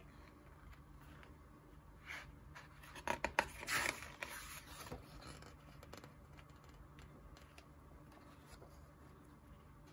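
Pages of DC's Absolute Planetary, an oversized hardcover comic book, being turned by hand: paper rustling, with a few sharp paper flicks and slaps about three to four seconds in, over a faint steady hum.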